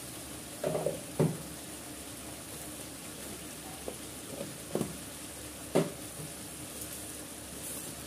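Spice paste and powdered spices frying gently in oil in a steel kadai, a steady low sizzle. Several short sharp knocks break it, the loudest about a second in and twice more around five to six seconds.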